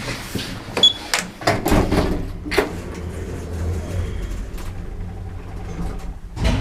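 Lift doors sliding and clunking, with several knocks in the first few seconds, then a steady low hum as the lift runs.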